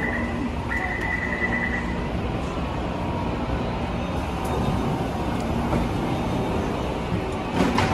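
Platform screen door warning buzzer at a Taipei Metro station sounding in steady beeps during the first two seconds, over the constant hum of a C341 metro train standing at the platform. A short sharp noise comes near the end.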